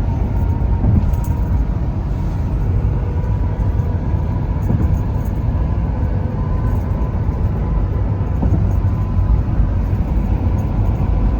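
Steady road noise of a car being driven: a low rumble of tyres and engine, with a faint steady whine above it.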